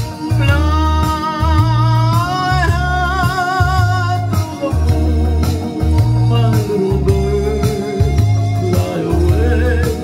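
A man singing long held notes with vibrato over backing music with a steady, pulsing bass line.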